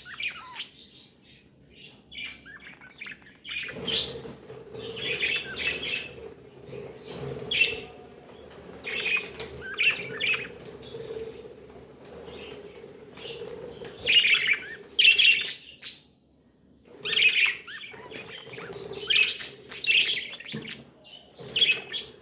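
Budgerigars chirping and warbling in quick bursts of a second or two, with short lulls between the bursts.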